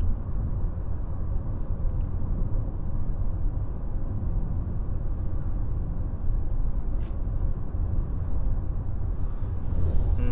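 A steady low rumble with a hiss over it, with a few faint clicks.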